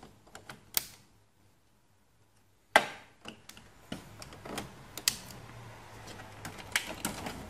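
Plastic clicks and rattles of ink cartridges being pushed and snapped into the print-head carriage of a Canon MX870 inkjet printer. A few light clicks come first, then a sharp snap about three seconds in, followed by a string of lighter clicks.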